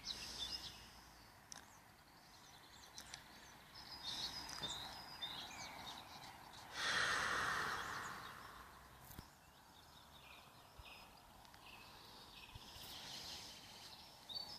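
Faint outdoor ambience with small birds chirping now and then, and a brief rush of noise lasting about a second and a half about seven seconds in.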